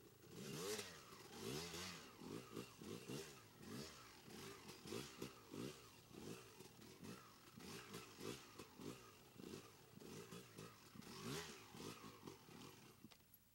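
Dirt bike engine revving in quick repeated blips, its pitch rising and falling about twice a second, as the rider spins the rear wheel around in tight donuts on muddy grass.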